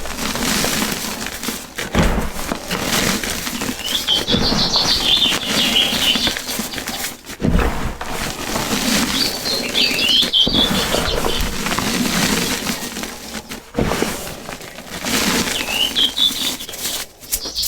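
Close crunching and grinding of a crisp, gritty crushable block breaking down into powder, continuous with brief pauses. Short bird chirps sound three times behind it.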